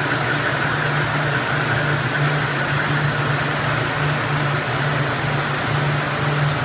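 Yarn doubling machine running: a steady low mechanical hum that wavers slightly, under an even whirring hiss from the winding heads.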